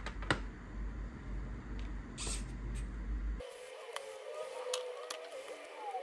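A few light clicks and knocks of handling as a 2.5-inch SATA SSD and a screwdriver are worked over an open laptop. About halfway through, the low background hum cuts off and a faint wavering tone comes in.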